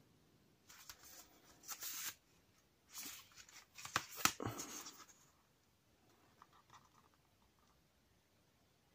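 Cardboard packaging being handled: a Blu-ray digipak sliding out of its slipcase and being turned over, with a few short rustles and scrapes and a couple of sharp clicks about four seconds in.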